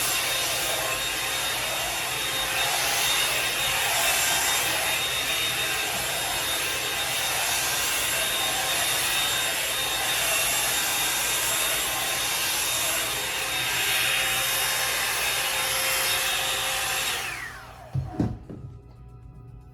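A Revlon One-Step hair dryer and styler, a hot-air brush, running with a steady motor whine and rush of air that swells and fades about every second. About 17 seconds in it is switched off and winds down with a falling whine, followed by a couple of knocks.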